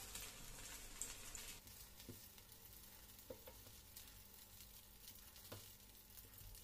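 Faint sizzling and crackling of hot oil in a frying pan as cauliflower and carrot fritters are lifted out, with a few light taps of metal tongs.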